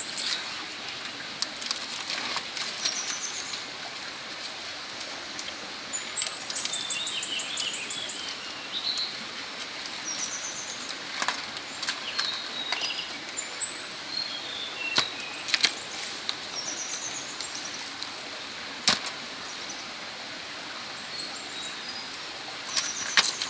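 Songbirds singing, repeating short high trills and quick rising runs of notes over a steady outdoor hiss, with a few scattered sharp clicks.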